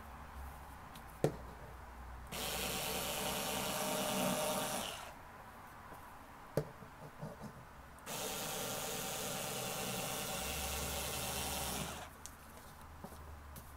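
Bosch IXO cordless screwdriver with its rotary cutter attachment running in two bursts of about three and four seconds, cutting through a single layer of woven cotton shirting, with a sharp click about a second in and another between the bursts.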